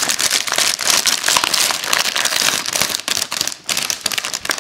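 Crinkling and crackling of a foil-lined snack packet being handled close up as the plastic tray of cheese twists is slid out of it: a dense run of sharp crackles with no let-up.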